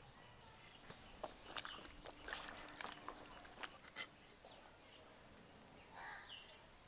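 Moringa drumstick pods being cut into lengths with a blade: a quick, irregular run of crisp snaps and crunches for about three seconds.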